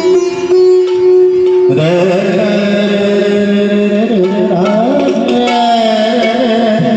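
Shehnai playing Indian classical-style music. Steady held notes over a drone give way, about two seconds in, to a bending, ornamented melody, with hand-drum strokes in accompaniment.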